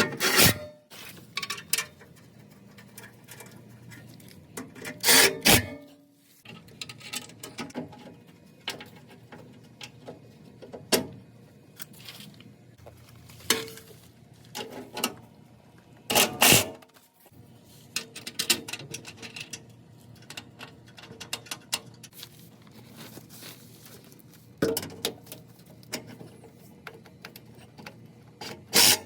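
Scattered metallic clinks and knocks of hand tools and bolts against steel as a pickup's skid plate is fastened back on, with a few louder clanks.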